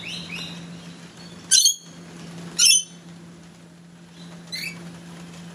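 Sulphur-crested cockatoo giving short, sharp squawks: two loud ones about a second apart, then a fainter one near the end.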